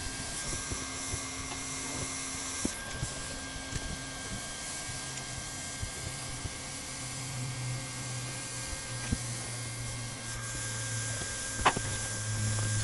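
Handheld heat gun blowing steadily with a constant motor whine while heating the edge of an SBS roofing membrane; its high hiss drops away about three seconds in and comes back near the end. Scattered light taps and clicks, with one sharper tap near the end.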